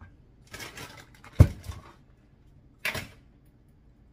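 Sugar pouring from a plastic measuring cup into a stainless steel mixing bowl, a rustling hiss that lasts about a second and a half, with a sharp knock partway through and a short second rustle near the end.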